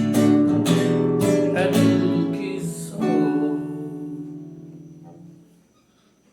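Closing music on a strummed string instrument: a few chord strokes, then a last chord about three seconds in that rings out and fades away.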